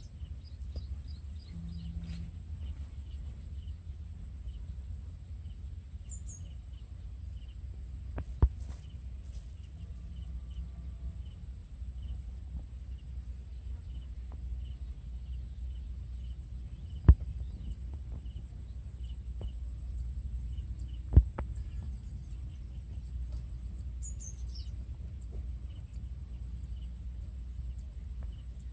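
Outdoor ambience: a steady high insect trill, with a few short falling bird chirps. Three sharp clicks stand out, the loudest in the middle, over a steady low rumble.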